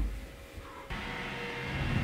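The tail of a deep boom dies away, then about a second in a steady low hum with a faint high steady tone sets in, like the hum of an indoor room.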